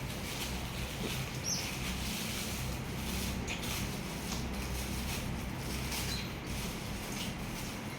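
Tissue paper rustling and crinkling as it is handled, with a couple of faint high squeaks, over a low steady hum.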